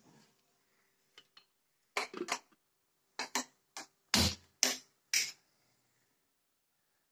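An aluminium pressure cooker being closed and set on a gas stove: sharp metal clanks and clicks in small clusters, the loudest about four seconds in.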